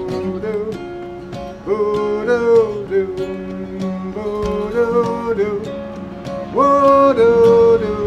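Solo steel-string acoustic guitar playing the instrumental introduction to a song: chords with clearly picked note attacks, growing louder about six and a half seconds in.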